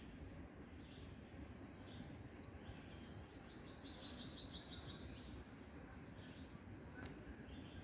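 A small songbird singing a fast, high trill for about three seconds, ending in a short run of separate, slightly lower notes, over a faint low background hum.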